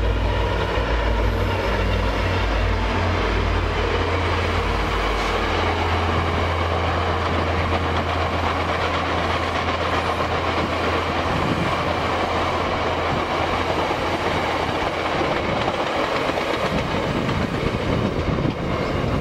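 Passenger train passing, led by two VIA Rail EMD F40PH-2 diesel locomotives. Their low engine drone weakens over the first half and fades out, leaving the steady rolling noise of the stainless-steel passenger cars' wheels on the rails.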